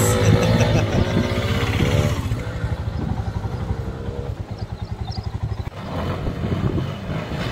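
Motorcycle engines on a dirt track. One bike's engine note rises and falls as it rides off and fades, then another grows louder near the end as it comes through a turn close by.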